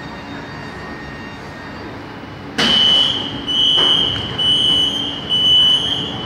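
Beijing subway train running with a steady hum and rumble. About two and a half seconds in, a loud, high electronic beep starts and sounds in four long pulses of steady pitch, then stops.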